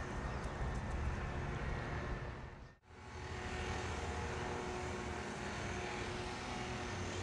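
Wind rumbling on the microphone, with a distant engine humming steadily. The sound fades out briefly about three seconds in, then returns.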